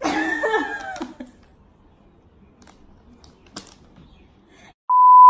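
A woman's voice for about a second at the start, then quiet with a few faint clicks. Near the end a loud, steady electronic beep tone of one pitch starts, the test-tone beep that goes with a colour-bars edit transition.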